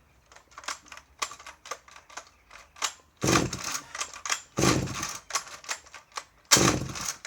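Jonsered Raket 60 56cc two-stroke chainsaw being pull-started: clicking from the recoil starter, then three hard pulls about a second and a half apart. The engine does not fire, and the owner thinks the tank is out of petrol.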